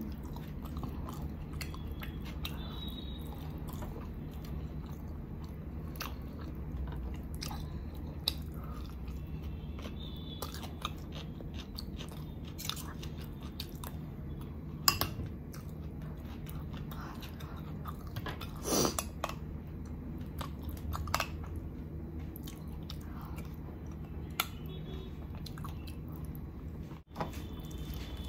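Close-miked chewing of chicken biryani eaten by hand, with wet mouth smacks and short clicks scattered throughout, over a steady low background hum.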